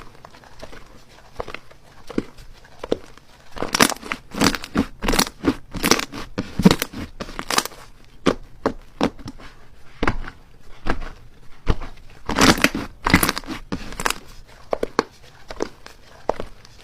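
Slime being squished and pressed by hand, giving irregular sticky pops and crackles. The pops come thickest about four to eight seconds in and again around twelve to fourteen seconds in.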